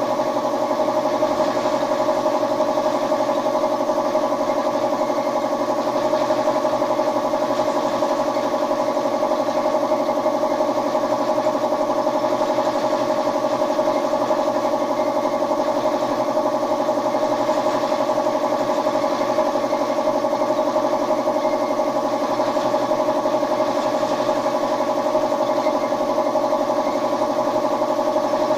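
A motor-driven machine running at a constant speed, giving a steady hum with one strong mid-pitched tone and overtones that never changes.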